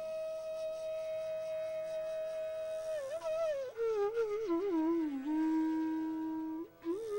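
Bansuri (bamboo flute) playing a slow Hindustani classical melody over a tanpura drone. It holds one long note, then descends through a phrase of slides and wavering ornaments to a long lower note, with a short breath break near the end.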